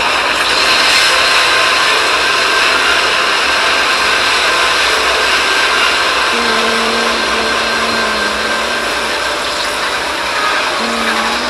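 Many copies of Samsung logo-history audio (startup and logo jingles) played on top of one another, merging into a dense, steady wash of noise. A few faint held tones show through, a low one from about six seconds in.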